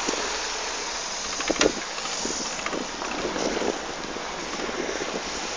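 Mountain bike riding along an asphalt street: steady tyre noise and wind on the microphone, with a couple of short knocks about a second and a half in.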